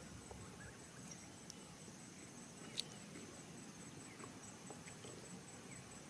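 Faint outdoor ambience: an insect trilling steadily at a high pitch, with a few short chirps and a single click about three seconds in.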